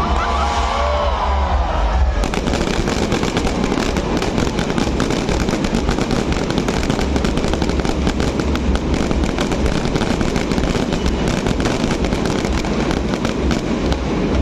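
Fireworks crackling: a dense, rapid run of small sharp pops that starts about two seconds in and keeps on without a break.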